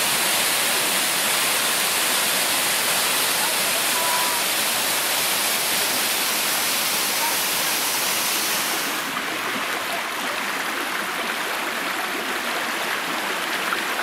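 Small waterfall pouring over a rock ledge into its pool: a steady rush of falling water with a bright hiss, which softens and loses its top hiss about nine seconds in.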